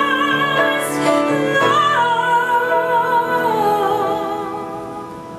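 A woman sings a long held note with vibrato, stepping down in pitch twice, over piano chords. It all fades down near the end.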